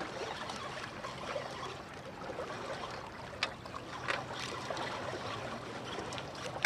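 Steady wash of water against the shore, with a few faint ticks about halfway through.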